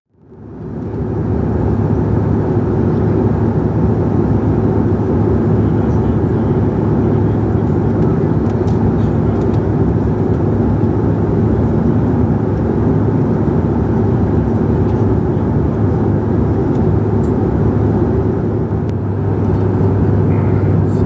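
Steady cabin roar of a CRJ-900 regional jet in flight, its rear-mounted turbofan engines and airflow heard from inside the cabin, with a strong low hum; it fades in over the first second or two.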